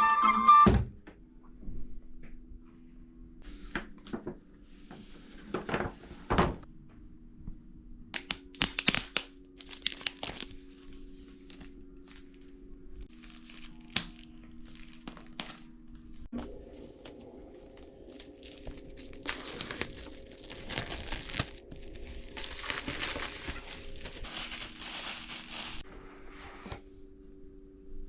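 Unboxing a laptop: the box and its paper packaging rustle, crinkle and tear in short bursts, with a few light knocks and a longer stretch of peeling or tearing about two-thirds of the way through. Faint sustained background music chords sit underneath.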